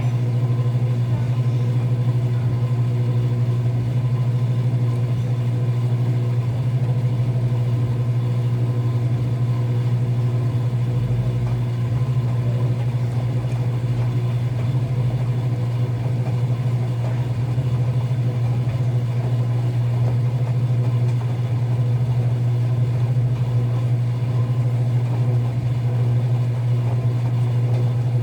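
Enxuta Euromatic washing machine running with a steady low hum and no change in speed or loudness.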